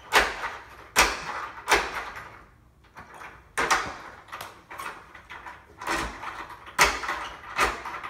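Newly installed deadbolt being thrown and retracted by its thumbturn: a series of sharp metallic clacks, about seven in all, as the bolt shoots out and snaps back. The lock is being tested to see that the bolt extends freely.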